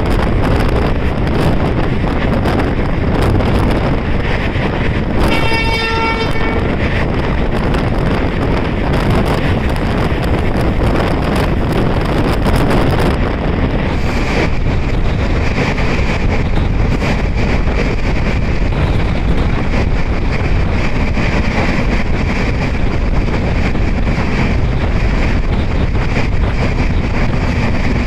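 Passenger train running at speed, heard from aboard, with wind buffeting the microphone: a steady loud rush. About five seconds in, a train horn sounds once for about a second and a half.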